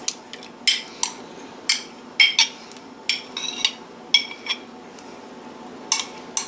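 Metal spoon knocking and scraping against a glass jar while thick sour cream is scooped out, giving a string of irregular ringing clinks.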